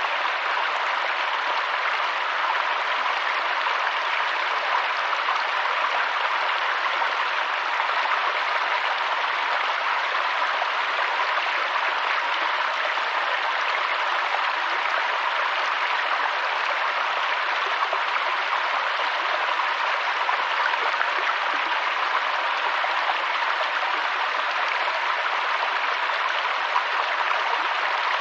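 Mountain stream running steadily: an even, unbroken rush of flowing water with no breaks or changes in level.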